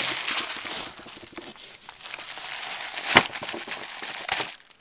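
Plastic bags and packaging crinkling as hands rummage through a box of small bagged items, with scattered small clicks and a sharp knock about three seconds in.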